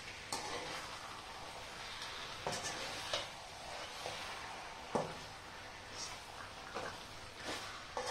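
Raw chicken pieces frying and sizzling steadily in a metal pot as a metal spoon stirs them, scraping and knocking against the pot's side about eight times.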